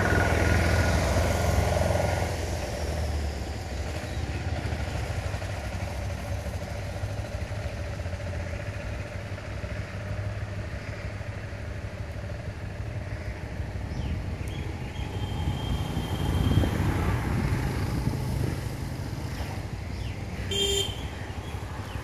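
Steady low rumble of outdoor background noise, with a brief high tone a little past halfway and a short sharper sound near the end.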